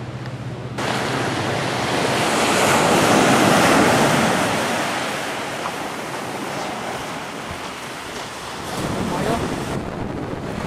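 Ocean surf breaking and washing in along a rocky shore. The rush of water swells to its loudest a few seconds in, then eases and builds again near the end.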